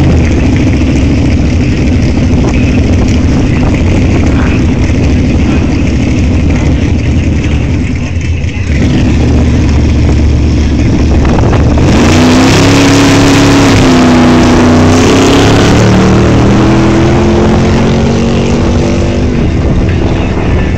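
Drag-racing car engines rumbling loudly at the starting line, then about halfway through a hard launch: a loud engine note with a hiss that holds, dips and climbs again as the car accelerates down the strip, easing off near the end.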